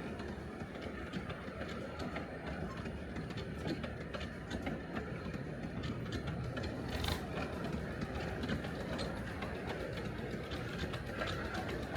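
Miniature railway train running along the track: a steady rumble with scattered short wheel clicks.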